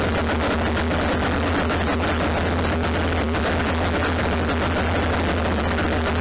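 John Deere 3300 combine running steadily while harvesting corn: a dense, even machinery noise over a strong low hum.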